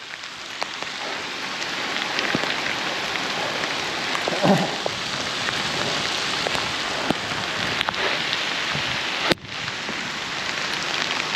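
Steady hiss of heavy rain and of bicycle tyres rolling through water on a soaked road, with a brief drop in the sound a little after nine seconds.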